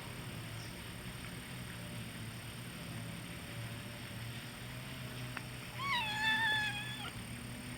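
A kitten mewing once near the end, a single high call of about a second that slides slightly down in pitch, over a low steady background hum.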